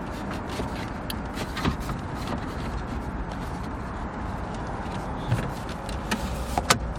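Scattered small clicks and taps of screws and a radio mount being handled and fitted inside a pickup's cab, over a steady low rumble.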